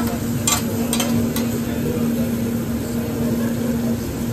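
Hibachi chef's metal spatula and knife clinking and scraping on a hot teppanyaki griddle, with a few sharp clinks between about half a second and a second and a half in, over a steady hum and food sizzling.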